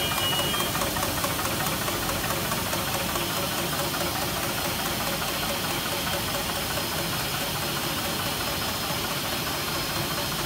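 Industrial label-printing and converting machinery running: a steady mechanical din from the rotary press and rewinding rollers, with fast, light ticking.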